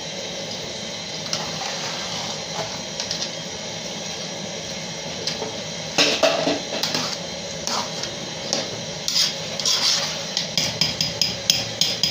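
A metal spoon stirring wet jollof rice in a metal pot, scraping and knocking against the pot. The knocks start about halfway through and come in a quick run of clicks near the end.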